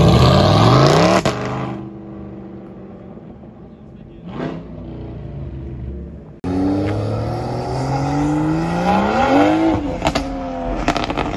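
A C8 Corvette's V8 accelerating hard, its note rising steeply for about a second before a shift drops the revs. After a cut, another sports car's engine accelerates, its note climbing for about three seconds to a peak and then dropping on the shift.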